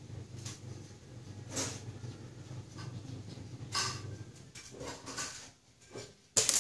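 A single sharp shot from a spring-powered airsoft sniper rifle near the end, after a few softer, brief noises over a low steady hum.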